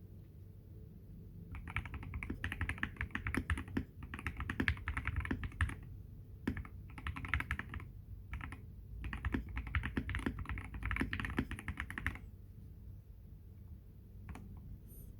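Typing in fast runs on a Feker IK75 V2 gasket-mount mechanical keyboard with lubed Everglide Water King (Aqua King) linear switches, a polycarbonate plate and PBT XDA keycaps. The keystrokes come in several bursts broken by short pauses and stop about three-quarters of the way through.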